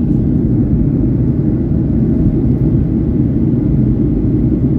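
Steady low rumble of a Boeing 737-900ER's CFM56-7B turbofan engines running at climb power, heard inside the passenger cabin at a window seat.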